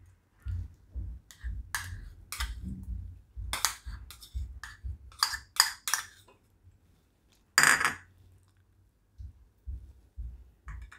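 Metal spoon scraping and tapping against a small plastic bowl and the rim of a kadai as fresh milk cream is scooped into rice flour: an irregular run of short clicks and scrapes, with one louder knock a little past the middle.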